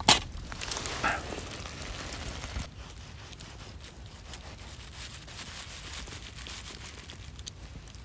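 A sharp click, then campfire crackling under a frying pan. After about two and a half seconds it turns quieter, with small crisp ticks and crinkling as a knife carves the hard smoked skin of a whole roasted piglet on a plastic sheet.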